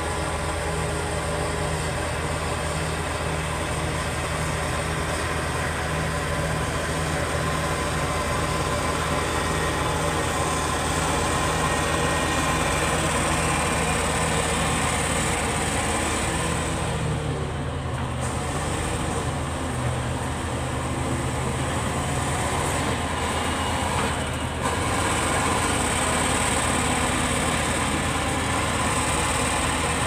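Crawler bulldozer's diesel engine running under load with its tracks clattering as it pushes and spreads soil. The engine note dips briefly about halfway, then picks up again.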